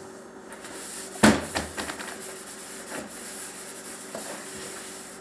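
Cleaning inside an emptied refrigerator: a sharp knock about a second in, then a few lighter taps and rubbing as the plastic interior is scrubbed with a rag.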